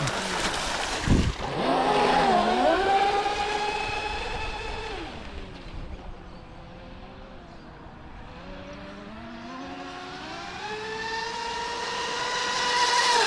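Twin electric motors of a custom Mini Zonda RC speedboat whining at speed on 38 mm props. The pitch dips briefly about two seconds in, and the sound fades as the boat runs away, then grows louder and higher again as it comes back near the end. A low thump comes about a second in.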